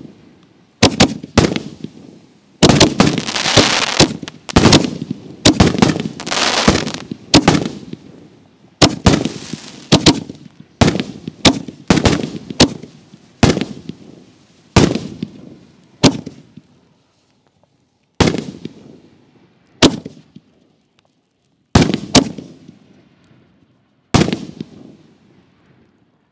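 Excalibur Platinum 5-inch canister shells bursting overhead one after another, chain-fused in sequence, with loud sharp booms that echo away. The bursts crowd together and overlap a few seconds in, then thin out to about one every two seconds toward the end.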